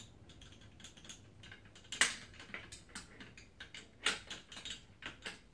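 Ratchet clicking in short runs as a 7/8 socket turns the top nut down onto a coil-over strut's shaft, with two louder metal clicks about two and four seconds in.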